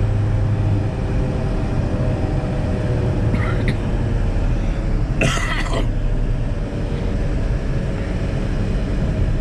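Van driving at highway speed, about 120 km/h, while towing an empty trailer: a steady low rumble of engine and road noise heard inside the cab. A brief noisy burst cuts in about five seconds in.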